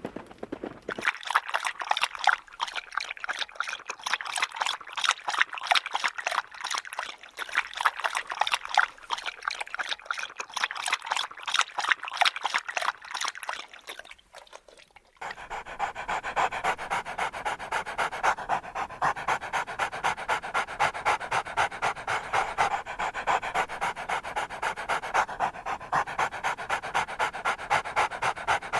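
A dog panting in quick, even breaths, in two stretches with a short break about halfway.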